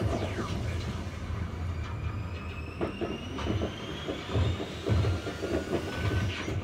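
Fireworks going off: a dense run of low booms and sharp cracks, with whistling tones gliding in pitch.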